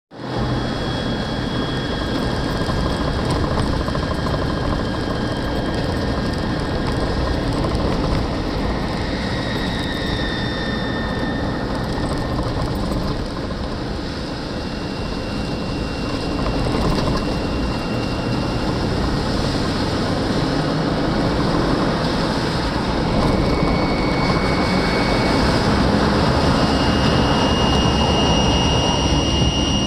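Steady vehicle noise from a 2014 Jeep Wrangler, with a thin high-pitched whistle that comes and goes every few seconds, each time at a different pitch: the unidentified noise the owner is trying to trace.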